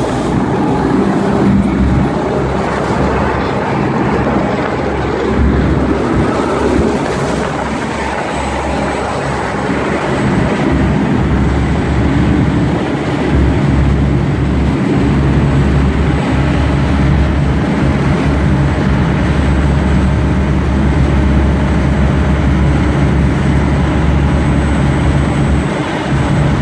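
A pilot boat's diesel engines running steadily under way with a low drone, over water rushing along the hull.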